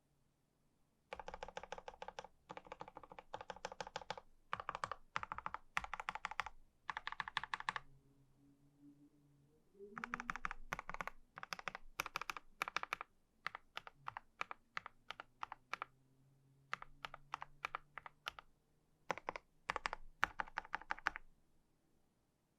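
KBD67 Lite R3 mechanical keyboard being typed on: quick runs of keystrokes, a pause of about two seconds near the middle, then more typing with some single, spaced strokes. It stops a little before the end.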